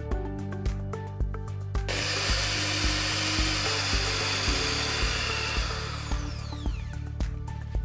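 Electric hand mixer beating cake batter at high speed: its motor whirrs from about two seconds in, then winds down with a falling whine near the end. Background music with a steady beat plays throughout.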